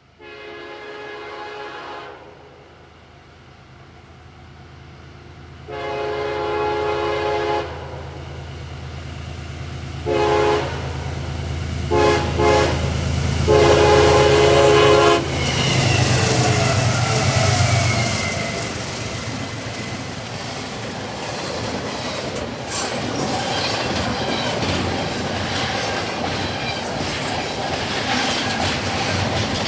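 A CSX freight locomotive's air horn sounds two long blasts, then three short ones and a final long blast, over the rising drone of its diesel engine as it approaches and passes. The double-stack cars follow, rolling by fast with a steady rumble and clickety-clack.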